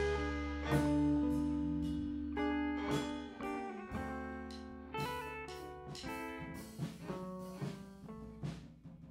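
Instrumental music blending punk rock, rockabilly and bluegrass: electric guitar notes picked and left ringing over a held low bass note. The music grows steadily quieter, with sharp strokes in its second half.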